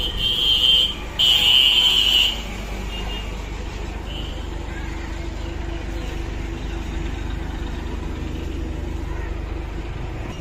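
Two honks of a vehicle horn, each about a second long, followed by the steady low rumble of road traffic with a vehicle engine running.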